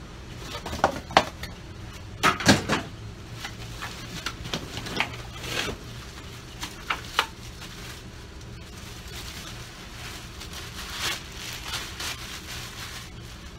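Tool parts and packaging being handled during an unboxing: irregular knocks and clacks, the loudest cluster about two and a half seconds in, with a steady low hum underneath.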